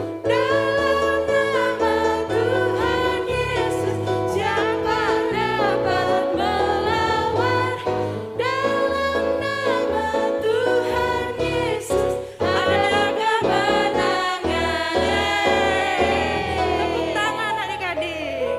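Christian praise song sung by voices over instrumental backing with a steady bass line. It tapers off near the end.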